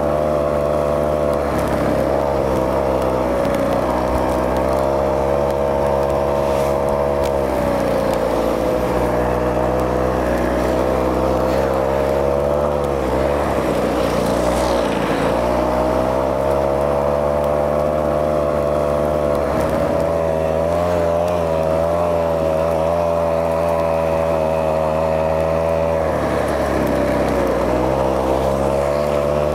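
Small gasoline engine of a motorized ski-track propulsion unit running hard under load. Its pitch is mostly steady but sags and picks up again three times, around 8 seconds, 13–15 seconds and 27 seconds in, as the throttle eases and opens.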